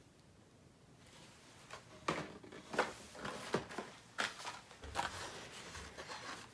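Handling noise of blister-carded die-cast toy cars: rustles and taps of plastic blisters and card backs against each other and the cardboard box as a handful of cards is pulled out. Nearly quiet at first, with the rustling starting about two seconds in.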